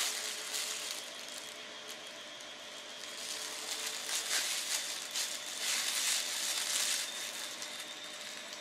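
Thin plastic bag crinkling and rustling while a spoon scoops powdered henna out of it, in several noisy bursts.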